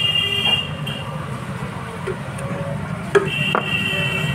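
A submersible pump motor is drained into a tin can, with light metal clinks; about three seconds in come two sharp knocks as the metal motor housing is set down on concrete. A steady engine hum runs underneath, and a high thin whine sounds twice in the background.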